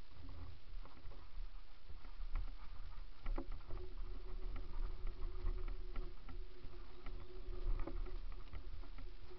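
Mountain bike rolling fast down a dirt and gravel trail, heard from a camera mounted on the bike: a low rumble of tyres and wind, broken by sharp knocks and rattles as it goes over stones. A steady hum joins in about three and a half seconds in.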